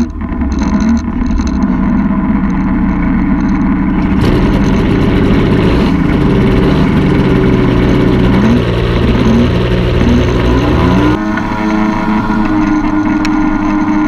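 Tandem paramotor trike's engine and caged propeller running steadily, growing louder and harsher about four seconds in as the throttle is opened for the take-off roll.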